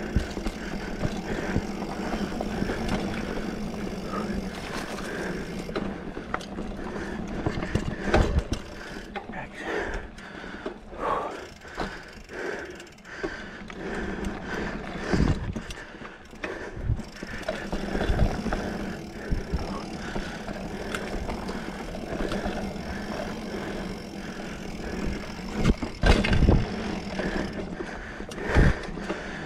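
2020 Specialized Fuse 27.5+ mountain bike ridden over a dirt trail: a steady rolling rattle of tyres and drivetrain, broken by several thumps from bumps, with two sharp ones close together near the end.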